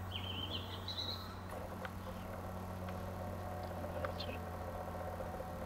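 Quiet countryside ambience: a small bird's rising twittering trill in the first second or so, then a few scattered chirps over a steady low hum.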